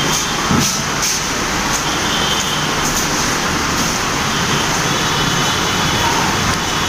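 Steady, loud rush of road traffic noise with no breaks, with a few faint high tones over it.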